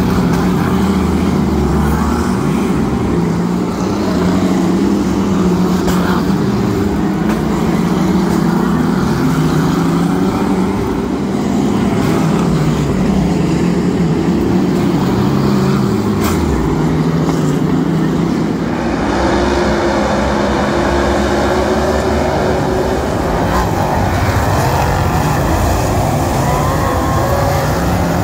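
A pack of winged speedway race cars lapping a dirt oval, many engines running hard at once. Their notes rise and fall as the cars accelerate and pass.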